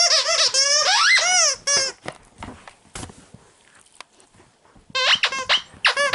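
Squeaker in a plush dog toy squeezed again and again as a husky chews it: a quick run of bending squeaks for a couple of seconds, a gap with soft rustling and a click, then another run of squeaks near the end.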